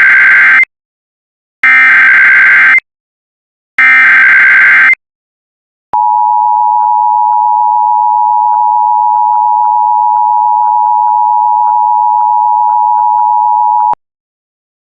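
Emergency Alert System SAME header: three bursts of screechy digital data tones, about a second each and two seconds apart. These are followed by the EAS attention signal, a steady two-tone alarm held for about eight seconds that cuts off suddenly, announcing a new alert.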